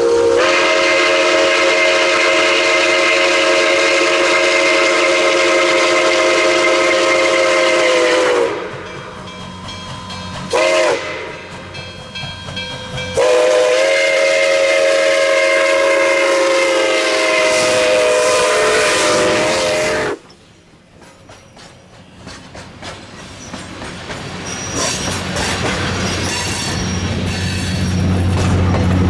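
Nickel Plate Road 765, a 2-8-4 Berkshire steam locomotive, sounding its chime steam whistle in several tones: a long blast of about eight seconds, a short toot, then another long blast of about seven seconds that cuts off sharply. This is the end of a whistle signal for a road crossing. After the whistle stops, the train's passenger cars rumble and clack past on the rails, growing louder near the end.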